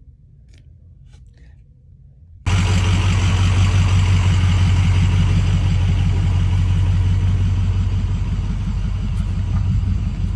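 Quiet for about two and a half seconds, then a motorboat's engine running steadily at speed cuts in abruptly and loud, a deep hum under a broad rush of wind and water.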